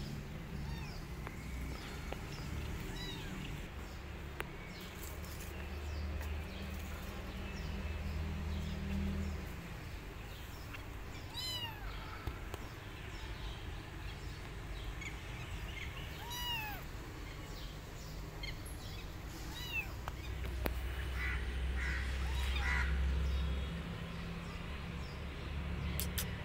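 A kitten meowing: several short, high-pitched meows, each rising and falling, spaced a few seconds apart.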